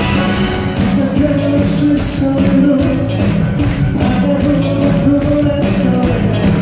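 Loud band music with a steady drum beat and long held melody notes, an instrumental stretch of a live pop song.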